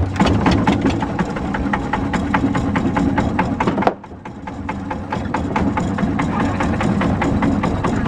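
Long-tail boat's engine running with a rapid, even beat. About four seconds in it drops off suddenly, then builds back up over the next second or so, as if the throttle was eased and opened again.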